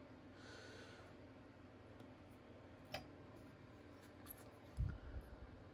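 Quiet bench handling of small pistol parts: a single sharp click about three seconds in, a few faint ticks, and a soft low thud near the end, against quiet room tone.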